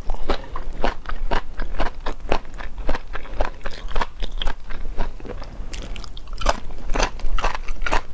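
A person chewing and crunching crispy, batter-coated fried food close to the microphone, with many sharp, irregular crunches several times a second.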